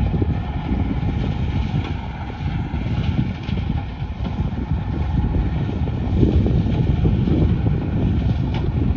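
Heavy earthmoving machinery running: a steady low diesel rumble from the excavator and screening plant, with wind buffeting the microphone.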